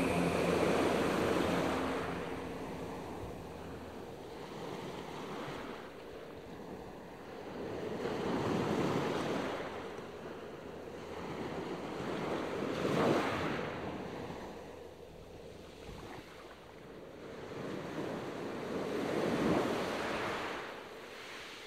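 Soft rushing noise that swells and fades in slow surges every five or six seconds, the strongest swell about thirteen seconds in.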